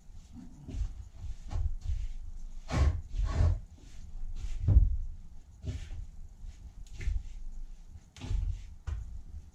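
Hands mixing and squeezing a large batch of pizza dough in a metal bowl: irregular dull thumps and knocks, roughly one or two a second, as the dough is worked against the bowl.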